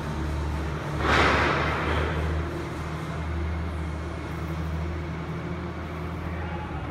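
A steady low mechanical hum, like an engine or machine running, with a short rushing noise about a second in.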